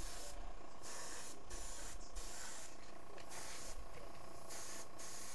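Airbrush spraying paint with a steady hiss of air, cutting out briefly several times and starting again.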